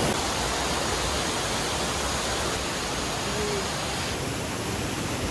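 Steady rush of water from a waterfall-fed mountain river tumbling over rocks and cascades.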